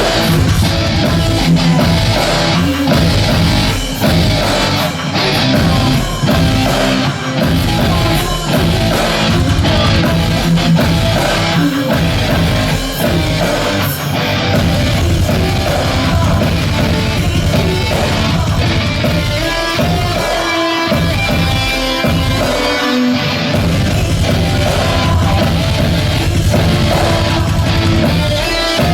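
Live rock band playing loud, with distorted electric guitar over a steady drum beat.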